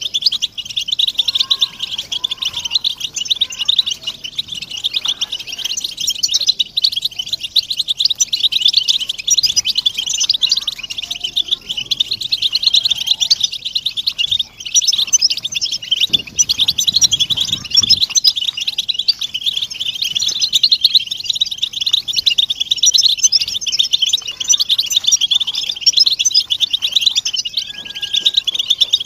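A flock of European goldfinches twittering and calling together, a dense unbroken chatter of fast high notes.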